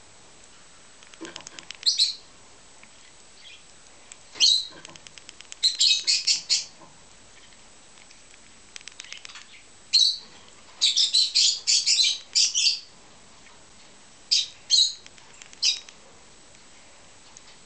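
Peach-faced lovebird chick giving begging chirps while being spoon-fed: clusters of loud, rapid, high-pitched calls come every few seconds, with quiet gaps between them.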